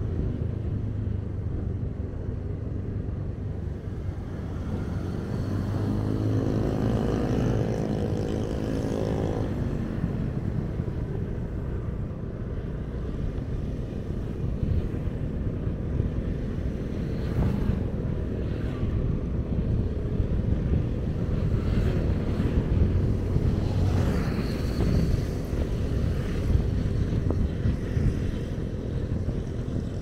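Steady low rumble of vehicle and road noise while riding through city traffic. About six seconds in, a pitched engine drone stands out for a few seconds, then fades back into the general traffic noise.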